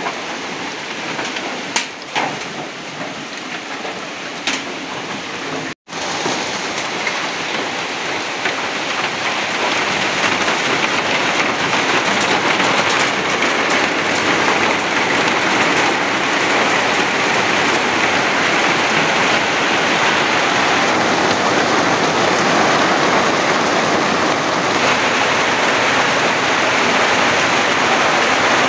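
Steady, loud hiss of rushing water, growing a little louder after the first few seconds, with a few light knocks early on. The sound cuts out for an instant about six seconds in.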